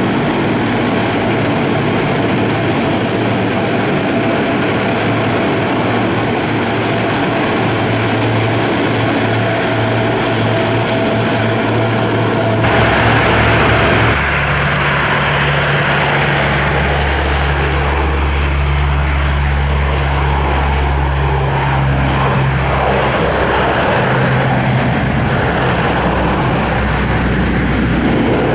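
Lockheed CC-130H Hercules turboprops running as it taxis, a steady high whine over the propeller drone. About halfway through, the sound cuts to a CC-130J Hercules's six-bladed propellers at takeoff power during its takeoff roll, a deep, heavy propeller drone.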